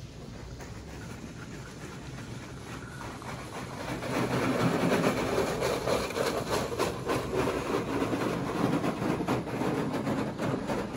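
Istobal in-bay automatic car wash in its cycle: a steady low hum, then from about four seconds in a much louder, dense clatter as the machine works over the car.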